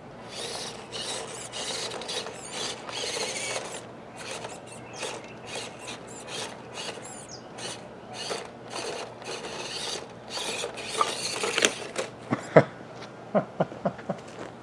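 WPL C34 1/16-scale RC crawler's small electric motor and gearbox whining in short spurts as it is driven on and off the throttle. Near the end come several sharp knocks as the truck tumbles over onto its roof.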